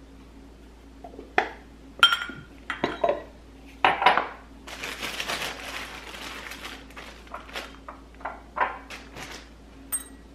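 Glass jars and cork lids being handled and set down on a countertop: several sharp clinks and knocks of glass, one ringing briefly, then a couple of seconds of rustling and a few lighter taps near the end.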